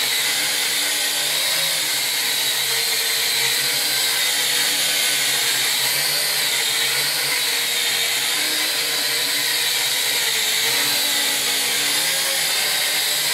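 Lishitoys L6052 toy quadcopter's small motors and propellers whining steadily as it hovers and drifts low, the pitch wavering slightly.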